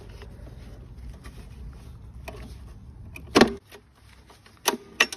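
A low steady rumble that drops away about three and a half seconds in, with a sharp knock at that moment and two more sharp clicks near the end.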